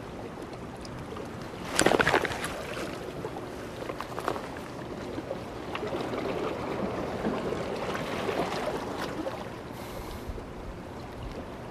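A cast with an ultralight spinning rod: a short, sudden burst about two seconds in. Then steady wind and harbour water, with faint ticks and rustles from the rod and spinning reel as the metal jig is worked.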